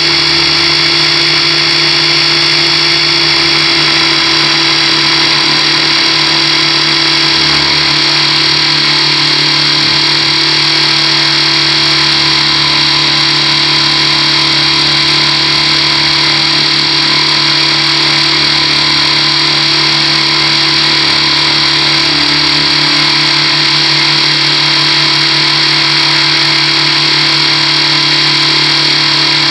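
Onboard sound of an Align T-Rex 600 Pro radio-controlled helicopter in flight: its motor, gears and rotor making a steady whine that holds its pitch throughout.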